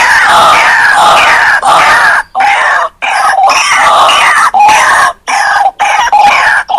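White-breasted waterhen (ruak-ruak) calling loudly in a fast, repeated run of harsh croaking notes, the lure call used to attract wild waterhens. It is broken several times by short, abrupt gaps.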